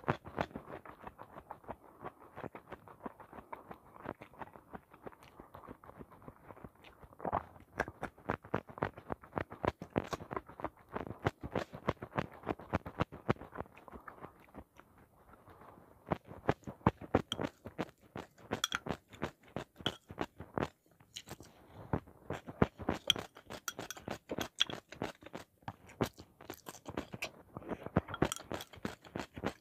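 Close-miked crunching and chewing of raw vegetables and kebab: dense, irregular crisp bites and mouth sounds. A few light clinks of a spoon against a bowl come near the end.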